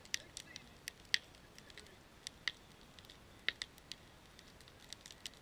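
Wood fire of split logs crackling: irregular sharp pops and snaps, about a dozen, some louder than others.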